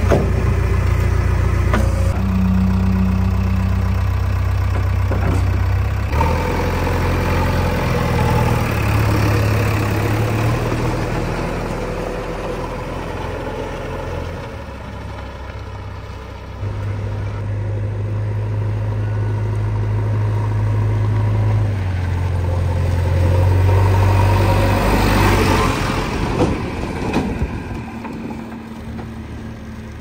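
JCB 3DX backhoe loader's diesel engine running, its pitch stepping up and down as it is revved and eased off, dropping lower near the end.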